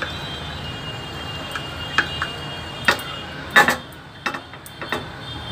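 A few sharp clicks and ticks from a nonstick frying pan of oil heating on the stove, over a steady low hum. The loudest is a short cluster about three and a half seconds in.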